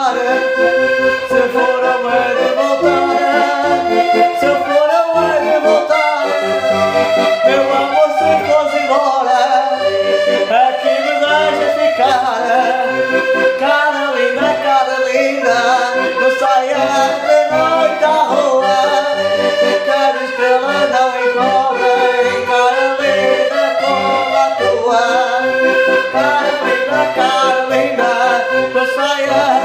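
Button accordion playing a traditional tune, a sustained melody over a regular, bouncing bass accompaniment.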